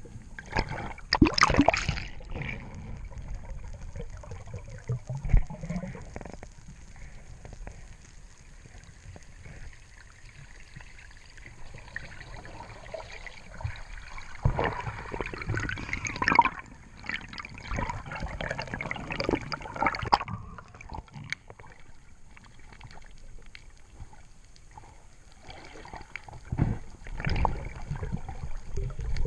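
Water sloshing and gurgling around a spearfisher's camera, in irregular bursts with quieter stretches between, the loudest about a second in, in the middle, and near the end.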